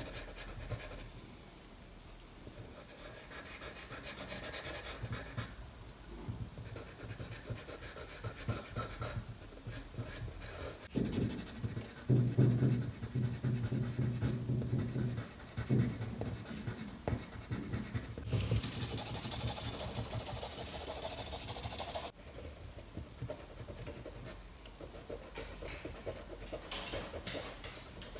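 Charcoal stick scratching and rubbing across drawing paper in short, uneven strokes. A low pitched sound comes in for a few seconds near the middle, and a steady hiss runs for about four seconds later on.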